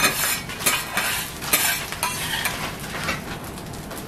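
Two metal spatulas scraping and clacking on a hot steel teppanyaki griddle as fried rice is gathered up and scooped into a bowl, with a run of sharp clacks in the first two seconds over the sizzle of the rice on the plate.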